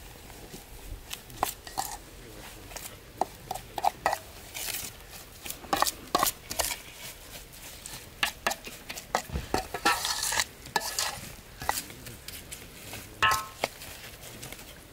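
A metal spoon stirring and scraping a thick spice mixture around a large stainless steel tray: irregular clinks and scrapes of metal on metal.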